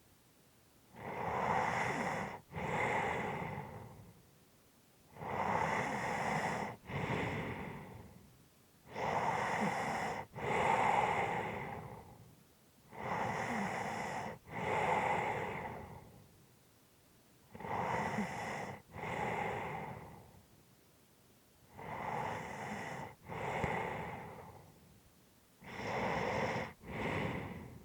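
Heavy, slow breathing of a sleeping person: about seven breaths, each a noisy breath in followed straight away by a breath out, one every four seconds or so.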